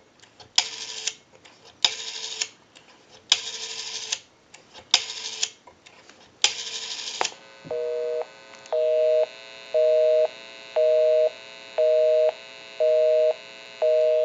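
Rotary dial of an RTT-56A Belgian desk telephone whirring back five times as a number is dialed. It is followed by a two-tone busy signal beeping about once a second: the number called is engaged.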